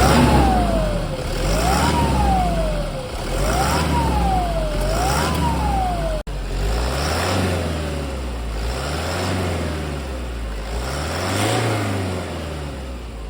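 Toyota Hilux 1KD turbo-diesel engine revved again and again, with a turbo whistle that climbs quickly with each rev and falls slowly as it drops back. About six seconds in, the sound cuts off and comes back with more revs and a fainter whistle.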